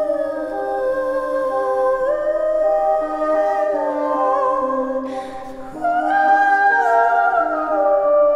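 A woman singing long held, wordless-sounding notes with a bassoon playing sustained tones beneath her voice, the two lines moving slowly in step.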